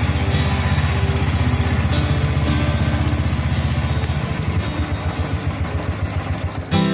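Royal Enfield Thunderbird 350X single-cylinder engine running, a fast even thump from the exhaust that slows and turns uneven about four seconds in. Guitar music comes in near the end.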